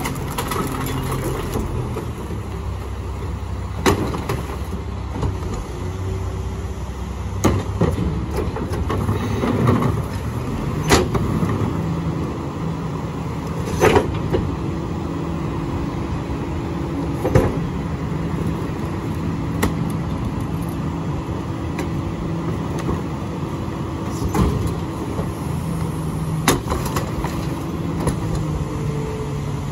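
McNeilus split-body rear-loading garbage truck running its diesel engine steadily while packing, the engine note rising a little about halfway through. Sharp bangs come several times as trash carts are tipped and knocked against the hopper.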